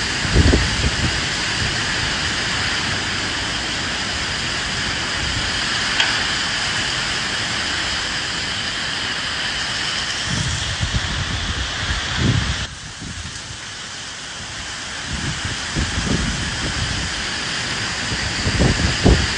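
Steady rain hiss with gusts of wind rumbling in every few seconds. About two-thirds of the way through, the sound drops abruptly in level and then builds back up.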